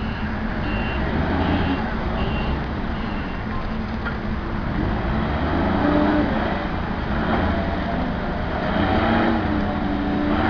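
Propane-powered Cat forklift's engine running while it manoeuvres, its reverse alarm sounding a series of short high beeps that stop about three seconds in.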